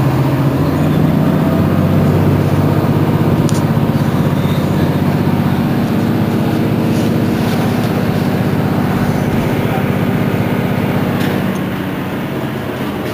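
Mercedes-Benz Citaro C2 city bus engine running under load as the bus drives, a steady drone that rises slightly in pitch about a second in and eases off near the end.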